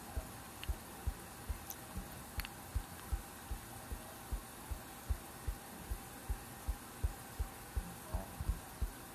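A finger tapping a phone's touchscreen over and over, making soft, low thuds about two and a half times a second. Each tap steps the astronomy app forward one hour.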